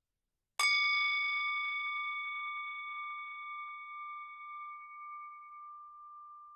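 A single struck bell, one clear strike about half a second in, ringing with a few high tones and fading slowly over about six seconds, the highest dying out first. It signals the end of a period of meditative silence.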